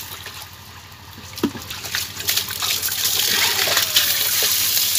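A stream of water pouring onto live fish in a woven bamboo basket, splashing over them. It starts faint with a single knock about a second and a half in, then becomes a steady gush from about two seconds in.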